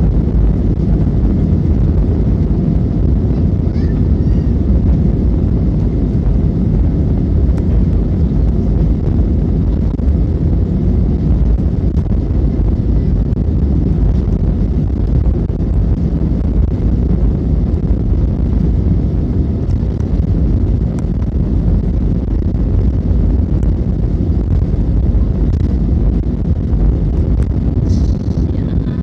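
Airplane during takeoff: a steady, loud, low roar of engines and rushing air that holds unchanged throughout.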